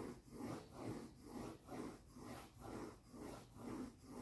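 Coloured pencil rubbing across drawing paper in quick, even back-and-forth strokes, about two a second.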